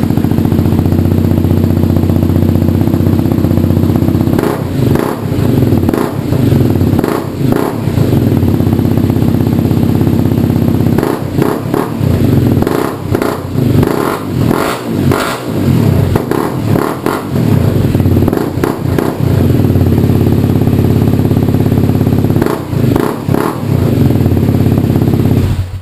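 Honda CRF250L's single-cylinder four-stroke engine idling through an FMF Q4 silencer and Megabomb header with the spark arrestor removed, blipped repeatedly with short stabs of throttle. The blips come in a quick cluster around the middle and a couple more near the end.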